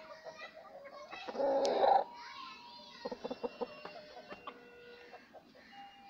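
Rooster clucking at close range, with one loud call lasting just under a second about a second and a half in, followed by a run of short, softer clucks.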